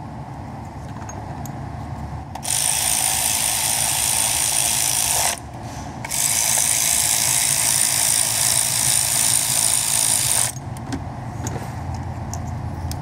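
Two long bursts of loud, even hissing, about three and four seconds long with a short break between, over a steady low hum.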